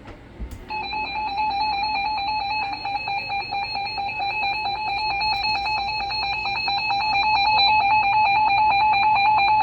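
Emergency Alert System attention signal: a loud, steady electronic alert tone that starts just under a second in and holds unbroken, marking the start of a new warning broadcast.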